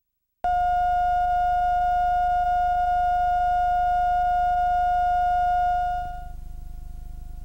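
Steady line-up test tone that goes with the colour bars at the head of a VHS tape, starting abruptly about half a second in over a low hum; about six seconds in the tone drops to a quieter level and carries on.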